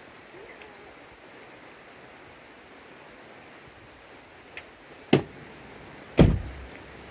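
A steady hiss with two sharp knocks about a second apart near the end, the second louder and deeper.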